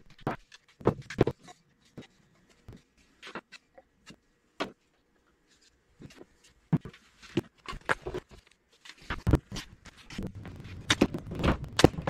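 Irregular clicks, knocks and taps of spring clamps and thin wooden pieces being handled and set down on a wooden workbench, sparse in the middle and busier near the end.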